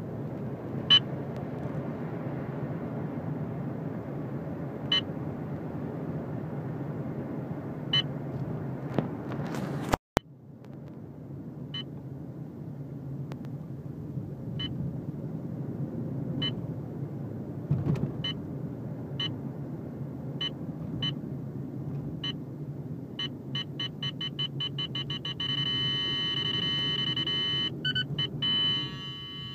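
Valentine One radar detector giving a K-band alert from speed cameras: short high beeps a few seconds apart that come faster and faster, turning into rapid, almost continuous beeping near the end as the signal grows stronger. Under it is the steady road rumble of the car cabin, and the sound cuts out for a moment about ten seconds in.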